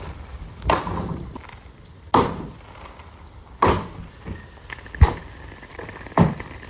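Hand-tool blows on a garage's wooden wall framing during demolition: five heavy knocks, about one every one and a half seconds, with smaller knocks and rattles of loosened wood between them.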